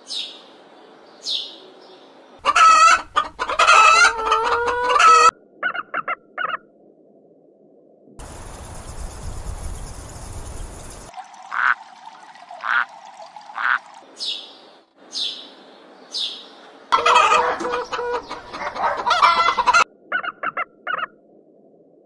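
Assorted bird calls in short edited clips: a few brief high chirps, and twice a run of loud, clucking fowl-like calls, with short quick pulses and a noisy stretch between them.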